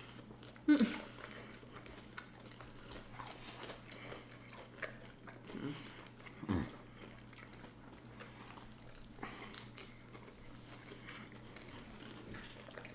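Quiet chewing and biting of food: people eating fried fish sandwiches and french fries, with small mouth clicks and smacks. A few short louder sounds, the first about a second in.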